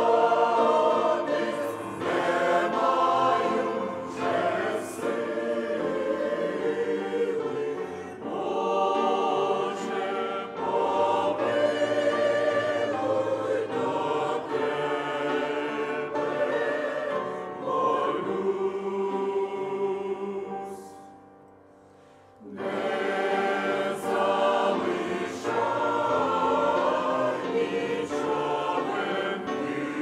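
Mixed church choir of women's and men's voices singing a Ukrainian hymn together, in sustained phrases. The singing dies away and stops briefly about two-thirds of the way through, then comes back in.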